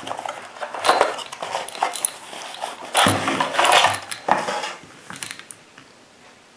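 Handling of a cardboard ammunition box and its plastic tray of 404 Jeffery rifle cartridges: cardboard sliding and rustling, the tray scraping out, and light knocks and clicks as it is set down and lifted. Loudest about a second in and again around three to four seconds in, then much quieter near the end.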